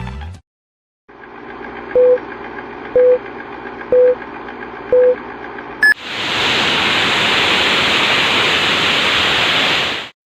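Four short electronic beeps one second apart over a low hum, a brief higher blip, then about four seconds of loud static hiss that cuts off suddenly: an edited-in countdown and static sound effect.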